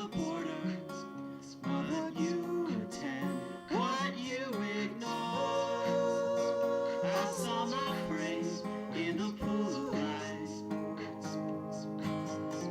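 Acoustic guitar being played as part of a song, with long held, wavering melody notes over the chords.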